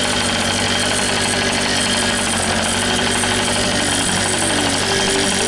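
Modded Yamaha QT50 moped's 49 cc two-stroke single-cylinder engine idling steadily.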